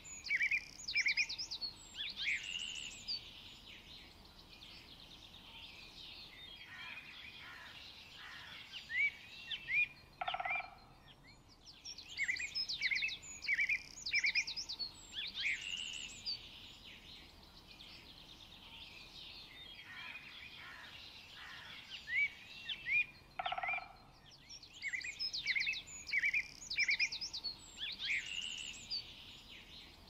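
Forest birdsong: bursts of rapid, high chirps and trills lasting a few seconds, coming back about every twelve seconds, with quieter notes in between. A short, lower call sounds twice.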